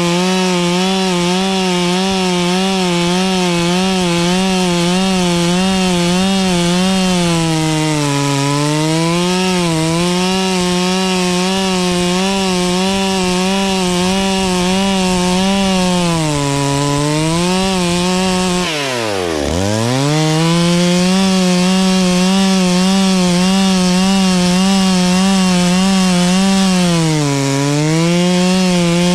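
Petrol chainsaw running at high revs while cutting wood, its pitch sagging briefly under load every several seconds. About nineteen seconds in, the engine speed drops sharply almost to a stop and picks straight back up.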